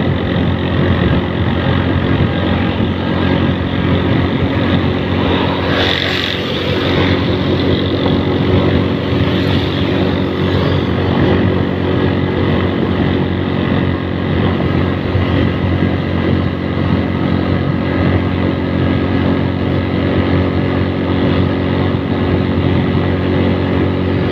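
A vehicle's engine running steadily at cruising speed, heard from on board, with road noise and a brief rush of noise about six seconds in.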